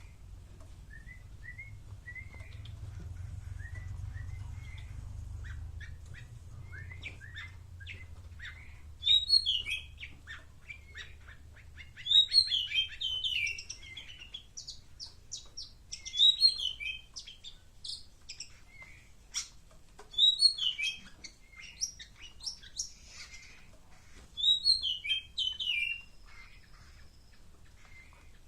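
A caged songbird singing: a run of soft, short rising notes at first, then from about nine seconds in, loud chattering bursts of song about every four seconds.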